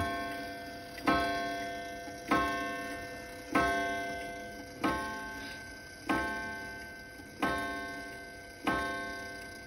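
Old key-wound pendulum wall clock striking the hour on its gong: evenly spaced hammer strokes about every second and a quarter, each ringing out and fading before the next. It is the nine o'clock strike, just after the hour hand was moved forward to nine.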